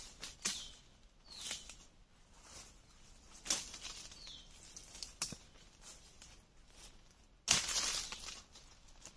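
Footsteps crunching through dry leaf litter and brushing through forest undergrowth, in irregular short rustles. A louder, longer rustle and scrape of leaves comes near the end.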